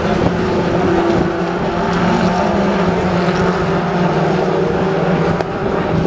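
British Touring Car Championship race cars, their 2.0-litre turbocharged four-cylinder engines running at high revs, loud and steady as the pack goes through a corner.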